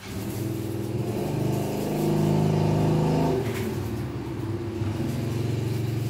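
A car engine that starts up suddenly, revs up and then settles to a steady run.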